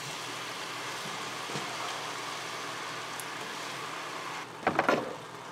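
Steady sizzling hiss of chicken and vegetables cooking in hot pans, with a few light clicks, then a brief louder scrape of the serving utensils against the pot near the end.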